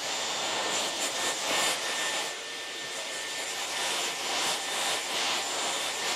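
Dyson hair-styling tool switched on, blowing a steady rush of air with a thin, high motor whine over it.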